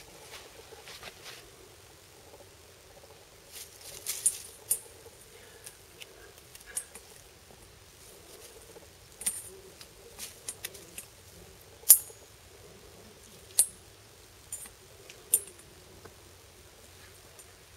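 Dry twig crackling and clicking as it is waved and poked at a cat, about a dozen short, sharp clicks scattered through, the loudest about twelve seconds in.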